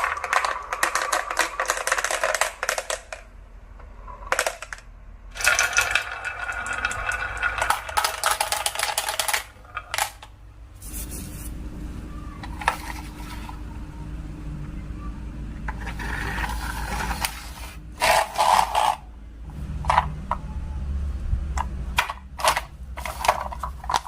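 Marbles rolling and clacking down a wooden HABA marble run in rattling runs, with scattered sharp clicks as they drop and hit. A steady low hum comes in about halfway through.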